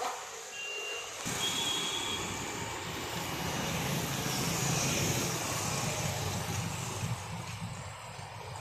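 A road vehicle passes, its engine and tyre noise swelling and then fading over several seconds. Two short high beeps come just before it builds, about half a second and a second and a half in.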